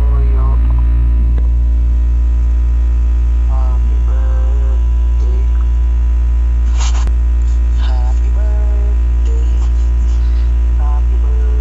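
Loud, steady electrical mains hum throughout. Faint voices from a video call on a phone come through now and then over it.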